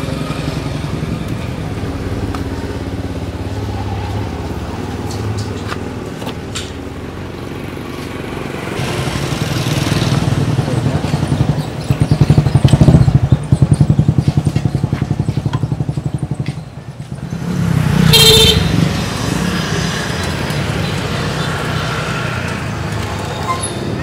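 Motorbike engines running by on the road, one passing close and loud in the middle with a fast pulsing beat. A short higher-pitched sound comes about eighteen seconds in.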